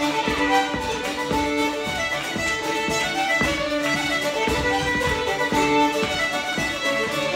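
Two fiddles playing a lively traditional tune together, with a strummed string accompaniment keeping a steady beat underneath.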